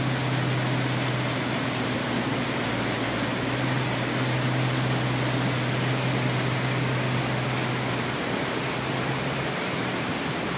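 Steady rush of a river and waterfall in flood after heavy rain: a dense, even hiss, with a low steady hum underneath that stops about eight seconds in.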